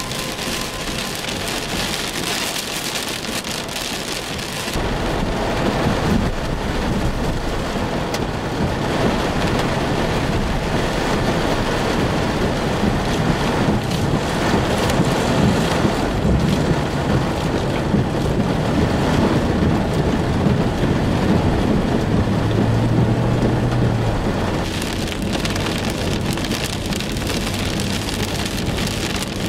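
Heavy rain on a car's roof and windshield, heard from inside the moving car. From about five seconds in, a deeper rush of tyre and water noise joins it as the car drives through standing water on a flooded road.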